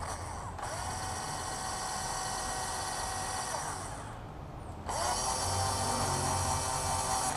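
Cordless drill whining as it drills pilot holes through a rudder mounting bracket. It starts just after the beginning, winds down about four seconds in, and starts again a second later, a little louder.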